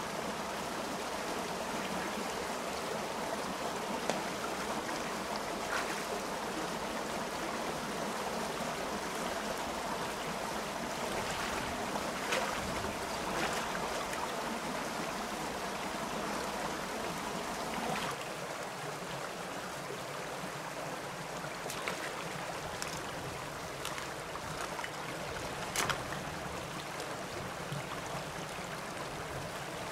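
Shallow stream rushing over rocks, a steady water noise that eases a little about two-thirds of the way through. Occasional short knocks and splashes sound over it.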